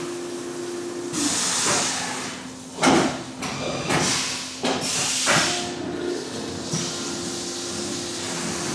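Haas UMC 750 five-axis CNC mill running while drilling pilot holes: a steady machine hum with hissing coolant spray that swells about a second in and again later, and two sharp knocks near 3 and 5 seconds.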